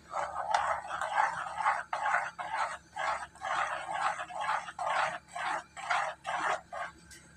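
A silicone spatula stirs and scrapes thick boiled-rice batter around a pan in quick, even strokes, stopping shortly before the end. The batter is being kept moving so it does not go lumpy while it cooks down into a dough.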